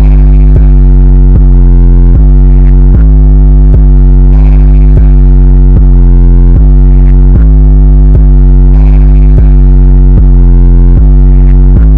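Bass-heavy electronic music at full level: a deep synthesizer bass line, with new notes struck about every three-quarters of a second.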